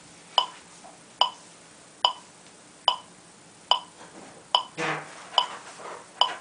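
Metronome clicking steadily, about 72 beats a minute: eight short, bright ticks, evenly spaced. A brief low sound comes in just before five seconds in.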